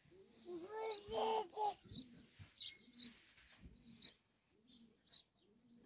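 Small birds chirping in short high notes again and again, with a few low, pitch-bending calls about a second in.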